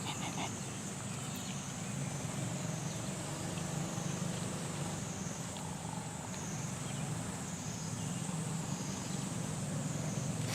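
Steady outdoor background: a low, even rumble like a running engine, under a high, thin drone that wavers slowly up and down in pitch.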